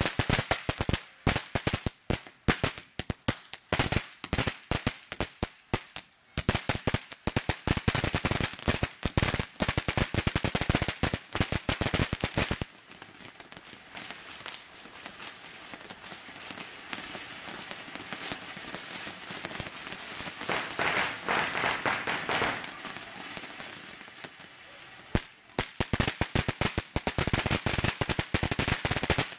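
TNT Rocketman firework fountain burning, spraying sparks with rapid crackling pops for about the first twelve seconds. It then settles to a quieter, steadier hiss, and the crackling pops return for the last few seconds.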